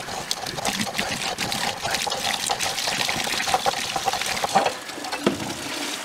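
Sediment-laden water gushing from an electric water heater's drain valve into a plastic bucket, with scattered clicks and scrapes of a metal bar worked in the valve opening. The bar breaks loose the packed calcium sediment so the tank can flush.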